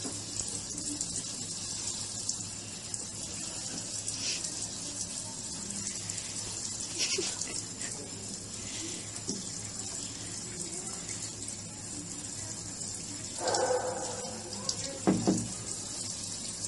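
A kitchen faucet's spray runs steadily into a stainless steel sink and over a cat standing in the stream, a continuous even hiss of water. Two brief louder sounds come near the end.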